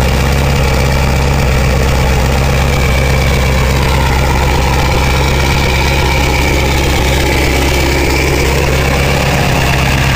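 2000 Ford F-350's 7.3 Powerstroke turbo-diesel V8 idling steadily after a cold start in freezing weather, with an even idle and no cold lope.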